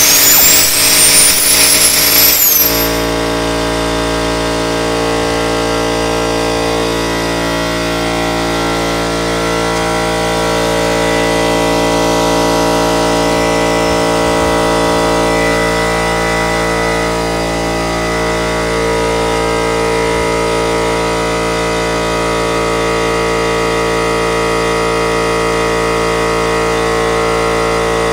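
Air-driven rotor of a Sperry train gyroscope spinning on compressed air. Over the first couple of seconds a hissing whine finishes climbing in pitch as the rotor comes up to speed. It then holds as a steady whine of several tones over the hiss of the air.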